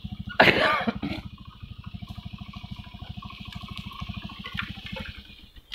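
Small motorcycle engine idling with a steady low putter of about a dozen beats a second, then cutting off near the end.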